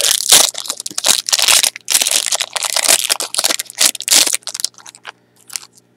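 Foil trading-card booster pack wrapper crinkling and tearing open in the hands: dense crackling for about four and a half seconds, then only a few light rustles.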